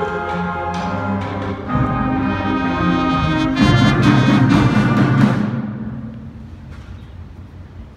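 A school concert band playing. The winds and brass build to a loud held chord a little before halfway, which then fades away over the last few seconds.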